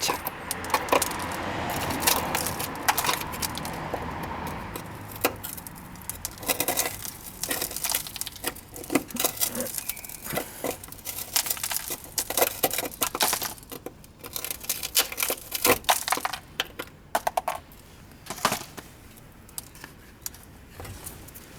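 Hand work on a rusted car body panel: irregular clicks, knocks and light metallic clinks, with a scraping rasp for the first few seconds.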